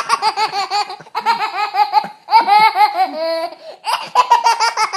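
A two-year-old boy laughing hard in four high-pitched bouts of rapid laughter, with short breaks for breath between them and a brief held squeal about three seconds in.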